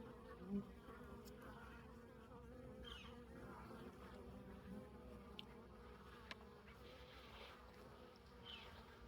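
Honeybees buzzing faintly in a steady, slightly wavering hum, with a few light clicks.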